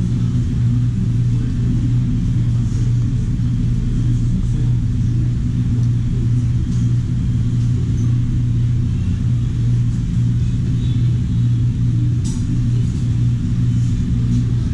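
Steady, loud low machine hum, holding an even pitch throughout, with a few faint clinks over it.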